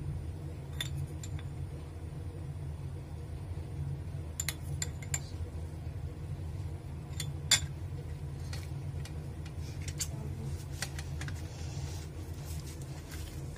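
Steel spoon clinking and scraping against a stainless steel plate as ghee is spooned onto and spread over a ball of dough: scattered sharp clinks, the loudest about halfway through. A steady low hum runs underneath.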